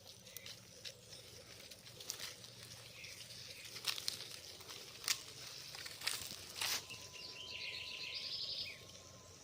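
Birds singing, with a rapid trilled phrase near the end, and several sharp clicks scattered through the middle.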